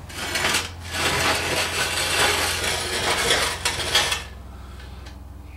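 Metal clattering and scraping for about four seconds as a heavy manual transmission is handled and shifted on a steel hand truck, stopping a little after four seconds in. A steady low hum runs underneath.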